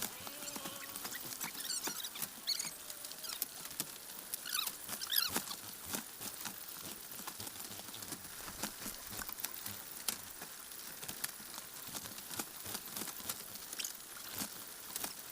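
Jowo Super chicks shuffling and scratching with quick, irregular patter and clicks. A few high, short cheeps come in the first five seconds.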